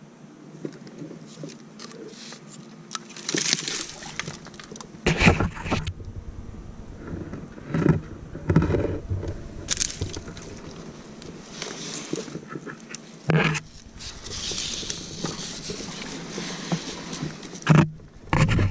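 Irregular knocks, scrapes and rustling as a camouflage-netted kayak and its paddle push through branches and brush in flooded timber, with several louder knocks scattered through.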